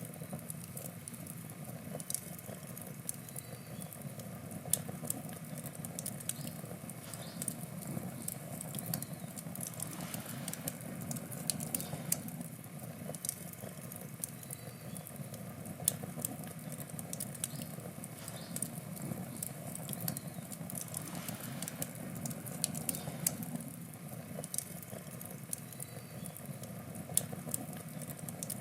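Wood campfire burning: frequent, irregular sharp crackles and pops from the burning wood over a steady low rush of flame.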